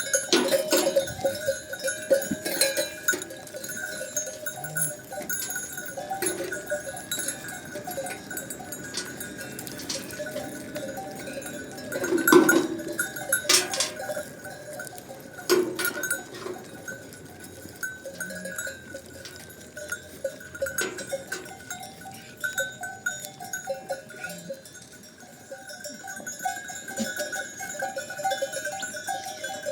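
Bells on a flock of sheep and goats clanking and jingling irregularly as the animals move, with a few louder clangs along the way.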